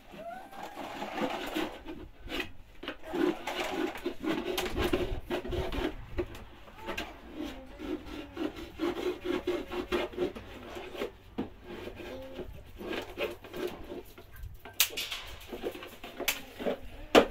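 A knife sawing and scraping through a thin plastic jug, a rapid run of short rasping strokes with scattered clicks.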